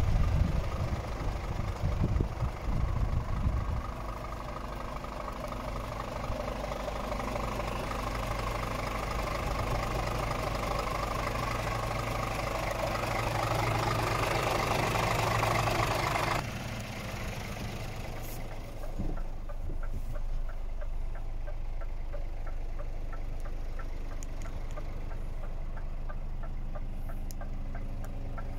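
A Scania R450's 13-litre straight-six diesel idling steadily, with wind buffeting the microphone in the first few seconds. About two-thirds of the way through the sound drops abruptly, and the engine is then heard quieter and muffled, with faint regular ticking.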